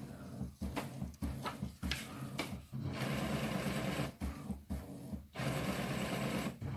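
Brother MFC-J6720DW inkjet printer running a print-head cleaning cycle, its motors and mechanism whirring and clicking. A run of quick clicks and short whirs gives way, about three seconds in, to longer stretches of steady motor whirring broken by brief pauses.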